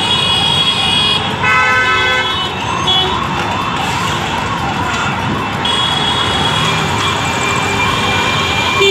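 Heavy road traffic, with a siren rising and falling about twice a second throughout. Vehicle horns honk over it several times, the longest and loudest about a second and a half in.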